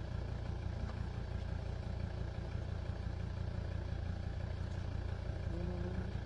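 An engine runs steadily with an even low rumble. A faint brief tone comes in near the end.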